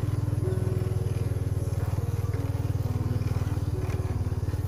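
Small motorbike engine running steadily under way over a rough dirt track, its low, rapidly pulsing drone steady throughout, with a music melody over it.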